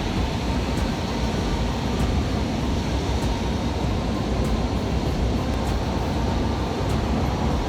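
Cessna 172's piston engine and propeller running steadily, heard from inside the cabin in flight as a constant low noise.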